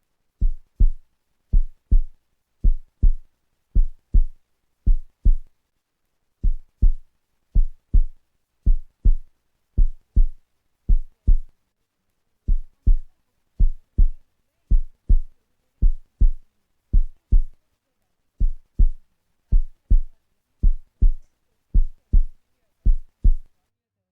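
Deep thumps in pairs, a heartbeat-like lub-dub about once a second, with a short pause after every five beats.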